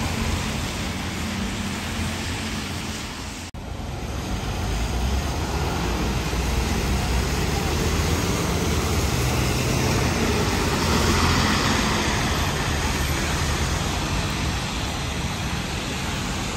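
City buses and road traffic running on a rain-wet street, with a steady hiss of rain and tyres under low engine hum. The sound breaks off for an instant about three and a half seconds in, then swells as a vehicle passes close.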